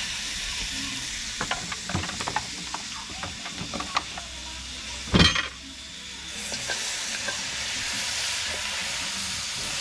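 Food sizzling in a pot over a wood fire: a steady hiss, with a scatter of small clicks and knocks in the first half and one loud knock about five seconds in.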